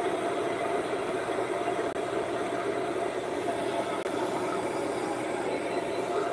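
Hand-held hair dryer running steadily.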